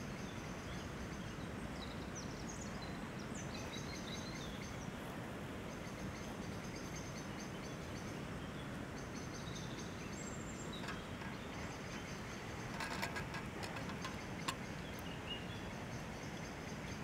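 Outdoor countryside ambience: a steady low background hiss with birds chirping throughout, and a short cluster of sharp clicks about three-quarters of the way through.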